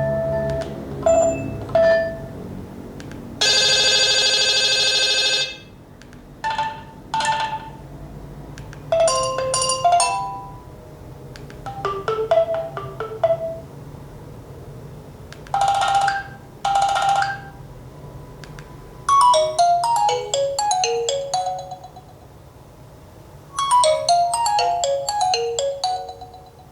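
Nokia 8000 4G phone playing a series of its built-in ringtone and alert tone previews through its loudspeaker, each a few seconds long with short pauses between. There are single chimes, a buzzy held tone, a double ring, and quick runs of notes near the end.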